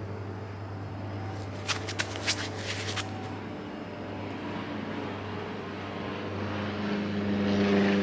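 A motor engine drones steadily and grows louder toward the end, as if coming closer. A few sharp clicks or taps sound about two to three seconds in.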